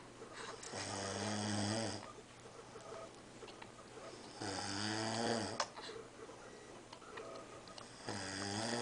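A man snoring in his sleep: three long snores, each a little over a second, about every three and a half seconds. A sharp click comes at the end of the second snore.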